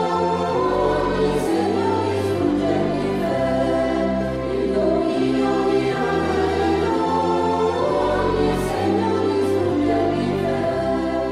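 Mixed choir singing a Marian devotional folk song in three-part harmony, with orchestral accompaniment, in long held notes over a moving bass line.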